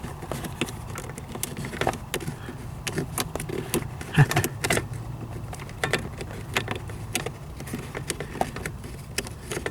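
Small clicks and light rattles of a throttle cable end being lifted out of and seated back into the gas pedal arm of a 1998 Ford Ranger, scattered irregularly over a steady low hum.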